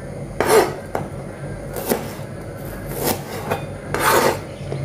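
Kitchen knife chopping shallots on a plastic cutting board: about five uneven knocks of the blade on the board, the loudest about half a second in and a longer one near the end.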